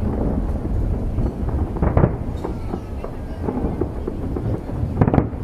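Aerial fireworks display: two loud shell bursts about two and five seconds in, with smaller crackles and a continuous low rumble between them.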